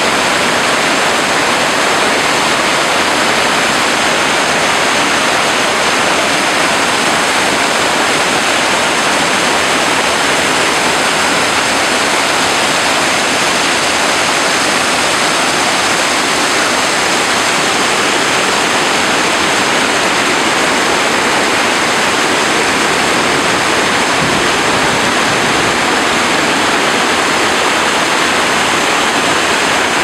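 Mountain stream cascading over boulders in small waterfalls: a loud, steady rush of white water.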